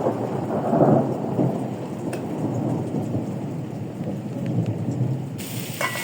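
Thunder rumbling through steady heavy rain, swelling about a second in and then slowly rolling away. A sharp click sounds just before the end.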